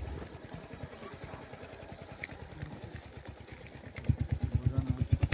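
Vehicle engine idling just after being started, a steady rapid low pulsing that grows louder about four seconds in.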